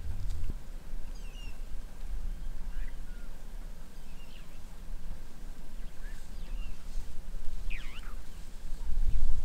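Scattered short bird chirps and trills from the African bush, over a steady low rumble.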